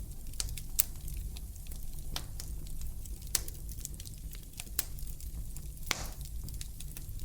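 Wood fire crackling in a fireplace: irregular sharp pops and snaps over a low steady rumble, the loudest pops about a second in and about three seconds in.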